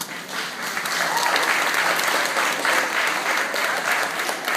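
Audience applauding, many hands clapping, swelling over the first second and then holding steady.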